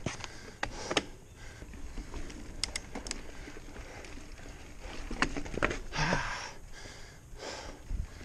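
Mountain bike climbing a steep dirt trail, with scattered sharp clicks and rattles from the bike and the rider's hard breathing. There are two loud exhales near the end.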